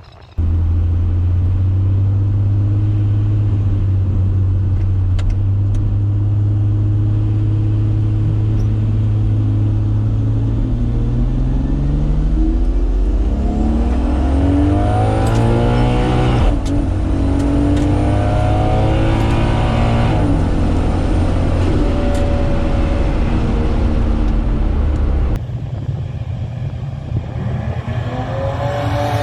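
Turbocharged 2JZ-GTE straight-six in a drag car, held at steady revs for about ten seconds, then launching and climbing in pitch through two gear changes. It backs off and quietens a few seconds before the end.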